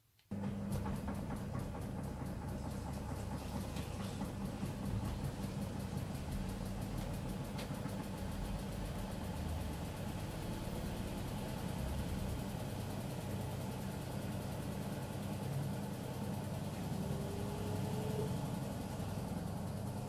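Miele W1 front-loading washing machine running, a steady mechanical hum with a low drone that starts abruptly just after the beginning and holds evenly throughout.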